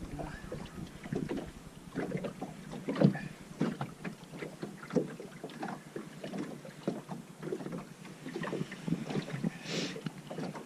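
Water lapping and slapping against a small boat's hull, with many irregular light knocks, the loudest about three seconds in.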